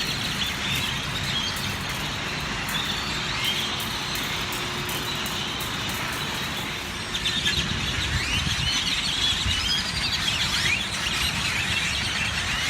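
A big flock of birds chirping and calling in the trees, many calls overlapping, growing busier about seven seconds in, over a low rumble.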